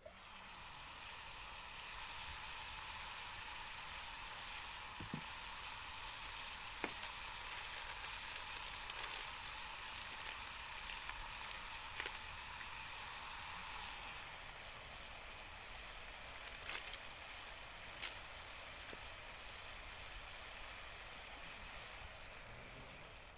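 Food frying in a pan, sizzling steadily with scattered sharp pops and crackles.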